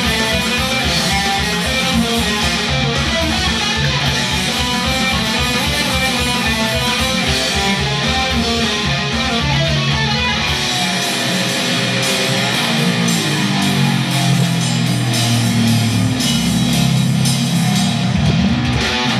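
Heavily distorted electric guitar playing a fast death metal riff. A rapid, chugging low pulse runs through the first half, and about halfway through the riff changes and the lowest notes drop out.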